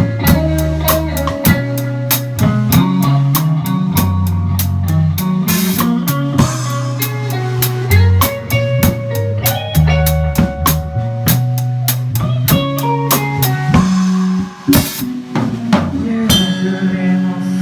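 Live band music, an instrumental passage: a drum kit keeps a steady beat with snare and cymbal hits over moving bass notes and guitar, heard from beside the drums. The band drops out briefly about fourteen seconds in, then comes back.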